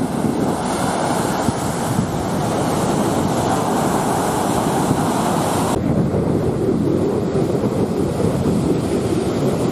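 Sea surf washing onto a sandy beach, a steady rush of noise with wind buffeting the microphone. About six seconds in the sound changes abruptly and the hiss drops away, though the low wash of the waves carries on.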